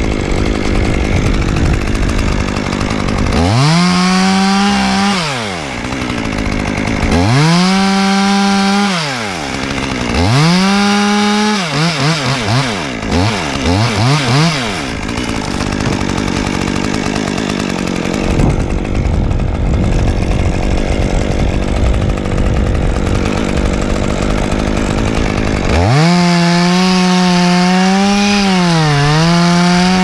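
Stihl chainsaw revving up and dropping back three times, with a few short blips of the throttle, then held at full throttle near the end with a brief dip in pitch.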